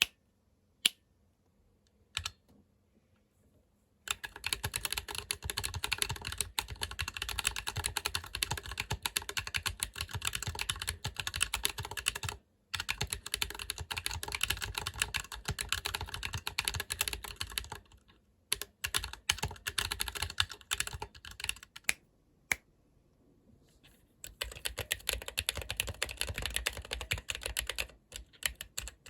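Fast typing on a 40% mechanical keyboard in an aluminium case with a carbon fibre plate: a few single key presses, then long runs of rapid clacking broken by short pauses. The case has no dampener for most of the stretch; after a pause about three-quarters of the way in, it has 5 mm Nitto EPTSEALER foam dampening.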